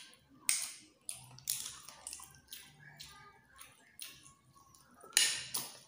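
Wet mouth sounds of a person eating snails in coconut-milk sauce: a string of short slurps and smacks, roughly two a second, the loudest a little after five seconds in.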